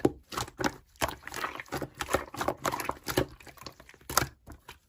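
Slime being squeezed and stretched by hand, giving a run of irregular wet clicks and small pops.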